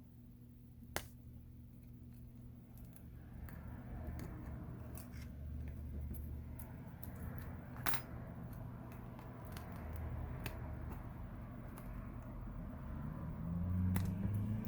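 Old adhesive strips being peeled and scraped off a phone's frame: a soft, uneven rustling scrape with a few sharp clicks, the loudest about eight seconds in, over a steady low hum.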